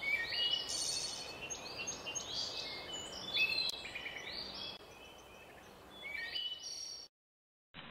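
Several songbirds singing: a mix of short whistled notes, chirps and trills over a faint outdoor hiss. The birdsong cuts off suddenly about seven seconds in.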